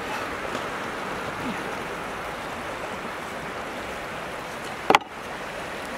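Steady rushing of a flowing river, with one sharp click near the end.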